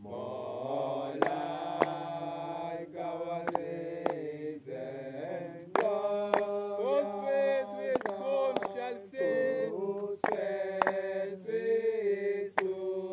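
Voices chanting a slow hymn in long held notes, with sharp knocks falling in time with the chant.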